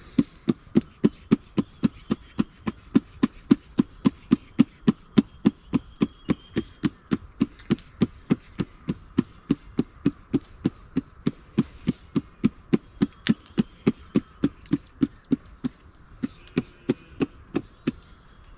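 A tool striking in a fast, even rhythm, about three blows a second, that stops shortly before the end.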